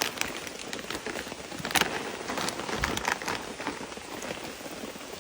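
Steady rain pattering, with scattered sharp ticks.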